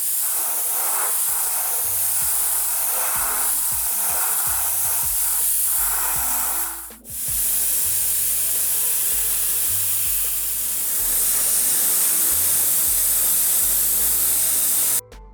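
Spray paint hissing steadily from a nozzle, with a short break about seven seconds in, over background music.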